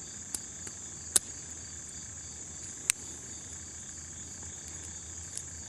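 A few sharp metallic clicks, the loudest about a second in and another near three seconds, as the cylinder of a Starr .44 cap-and-ball revolver is turned by hand and percussion caps are pressed onto its nipples. Behind them is a steady high-pitched insect drone.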